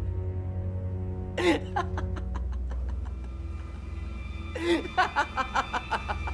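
A person laughing in two bursts of short, clipped pulses, a brief one about one and a half seconds in and a longer, louder one a little past halfway, over a low, sustained dramatic film-score drone.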